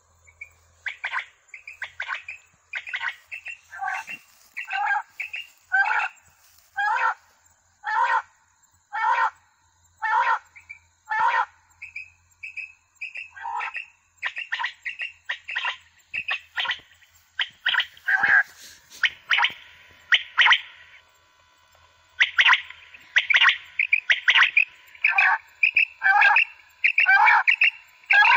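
Battery-powered quail caller playing recorded quail calls through horn loudspeakers. The short chirping calls repeat about once a second, then come faster and louder, packed close together near the end.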